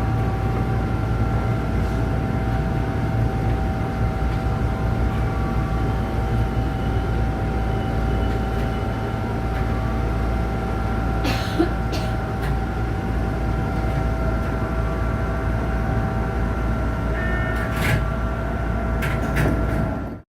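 Tokyu 8500-series electric commuter train standing at the platform with its doors open, heard from the driver's cab: a steady hum of several fixed tones over a low rumble, with one sharp click about halfway through and a few more clicks near the end.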